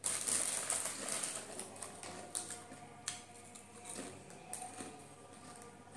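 Foil potato-chip packet crinkling loudly as a hand reaches into it, then scattered crisp clicks and crunches of potato chips being eaten, fading through the rest.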